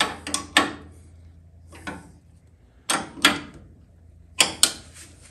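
Sharp clicks and knocks of parts being handled and fitted at a newly installed power brake booster and master cylinder, in three short clusters: right at the start, about three seconds in, and twice more about four and a half seconds in. A faint steady low hum sits underneath.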